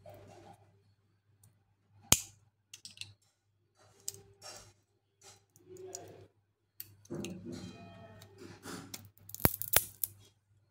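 Steel magnet plates from a hard disk's head actuator being handled and pried apart, giving scattered metallic clicks and scrapes. There is a sharp click about two seconds in, a rougher scraping stretch later on, and two sharp clicks close together near the end, the loudest of all.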